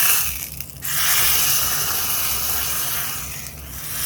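Hot oil tempering of mustard seeds in an iron ladle sizzling and hissing as it goes into the hot rasam. There is a brief break just under a second in, and the sizzle dies down near the end.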